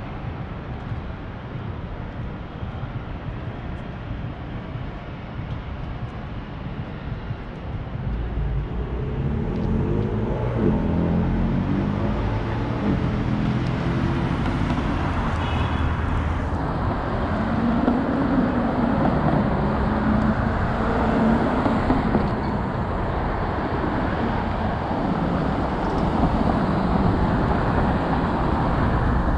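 City street traffic with motor vehicles passing. It grows louder about a quarter of the way in, and an engine drones through the middle.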